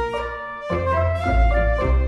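Orchestral background music with brass and woodwind notes over a low bass, the chords changing about every half second.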